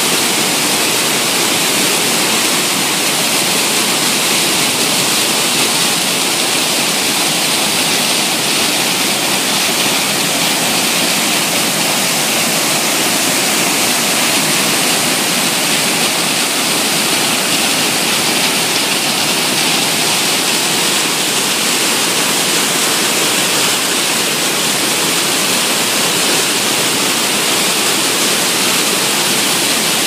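Waterfall pouring over rocks close by: a loud, steady rush of white water.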